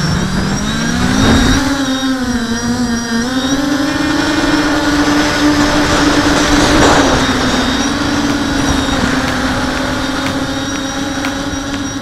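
QAV400 quadcopter's electric motors and propellers heard from its onboard camera: a buzzing drone that rises in pitch during the first second and a half as the quad spools up and lifts off, then holds steady, wavering slightly with the throttle, over a rush of prop wash.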